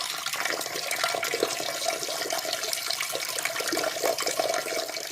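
Peeing sound effect: a steady stream of urine splashing into toilet bowl water.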